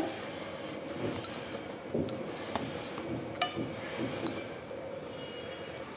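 A hand kneading soft chhena dough in a stainless-steel plate, heard as quiet pressing and squashing with a few scattered light knocks and metallic clinks from the plate.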